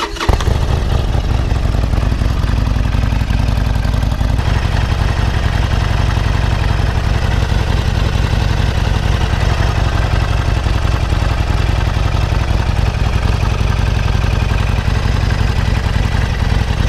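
Harley-Davidson Iron 1200's air-cooled V-twin firing up from the starter and then idling steadily, warming to dry out and cure freshly fitted fiberglass exhaust wrap.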